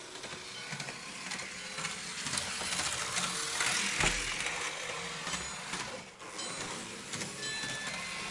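Märklin model railcar running along the track: a dense rattle of its wheels over the rails and the motor's hum, growing louder as it nears, peaking about four seconds in with a low bump, then easing off.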